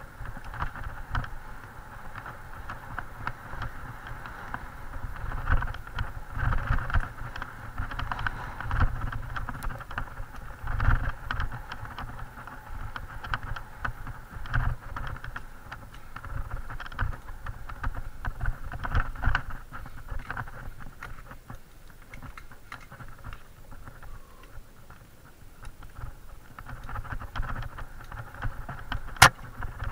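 Mountain bike ridden fast down a forest dirt trail, heard from a mounted camera: wind buffeting, tyre noise and a constant patter of rattles and knocks over roots and bumps. A sharp knock comes near the end.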